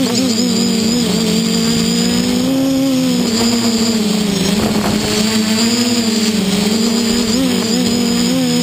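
Multirotor's SunnySky 2212 980kv brushless motors spinning 10x5 propellers in a hover: a steady buzzing hum with a high electric whine above it. The pitch wavers up and down as the flight controller corrects the throttle, dipping about halfway through.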